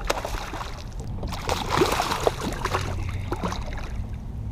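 Water splashing in short irregular bursts beside a kayak as a hooked northern pike thrashes near the surface, over a steady low rumble.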